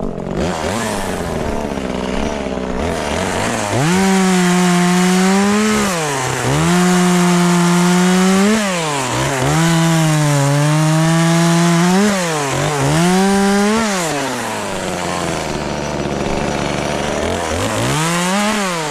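Small gas two-stroke chainsaw idling, then held at full throttle about four seconds in through four runs of a couple of seconds each, dropping back briefly between them, with the pitch sagging slightly as it cuts wood. It falls back to idle, then gives one short rev near the end.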